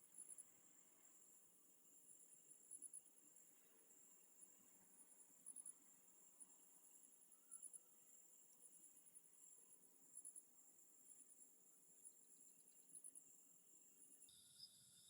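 Faint chorus of night insects, crickets among them: a steady high trill with short bursts of pulsed chirps every second or so. Near the end the chorus changes abruptly and a lower trill joins in.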